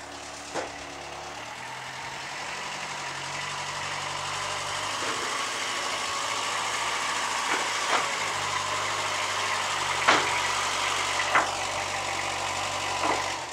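A VST Shakti MT 270 mini tractor's diesel engine runs steadily as it pulls a loaded brick trailer, growing gradually louder as it approaches. A few sharp clanks sound along the way, the loudest about ten seconds in.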